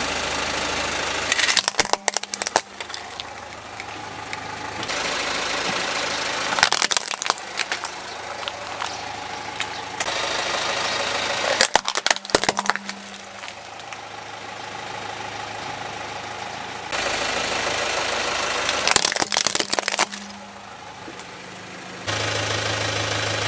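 Car tyre rolling slowly over plastic toy vehicles and crushing them, with the car's engine running: four bursts of cracking and snapping plastic a few seconds apart. The steady engine sound jumps in level abruptly several times between edited clips.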